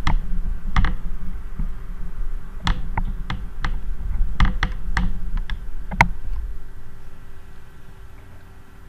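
Pocket watch chain clinking in the fingers as the watch is swung like a pendulum: a dozen or so light, irregular metallic clicks over a low rumble. The rumble fades away after about six seconds.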